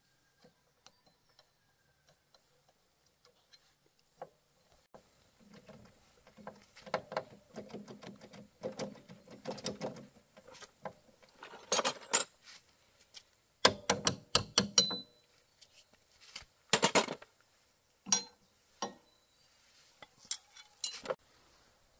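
Hand tools and metal motorbike parts clinking, scraping and clanking as a wrecked scooter is taken apart by hand. A few faint clicks come first, then a stretch of scraping and rattling, then a run of sharp metal clanks.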